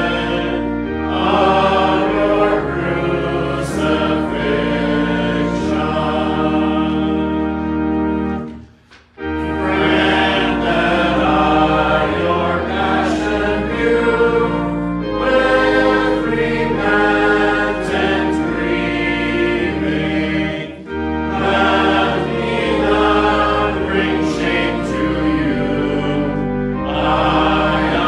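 Choir singing a hymn in sustained phrases, breaking off briefly about nine seconds in and dipping again near twenty-one seconds.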